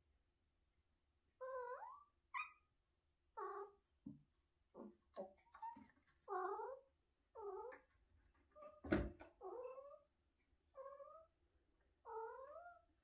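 Domestic tuxedo cat meowing over and over in short calls that bend up and down in pitch, about a dozen in a row with brief gaps. A sharp knock about two-thirds of the way through is the loudest sound.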